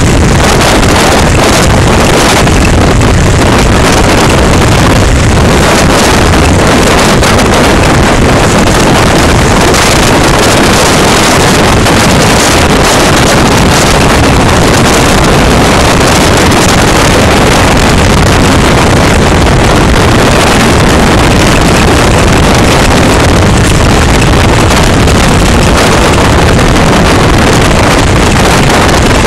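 Motorcycle being ridden on a dirt track: loud, steady wind rush on the microphone over the engine running.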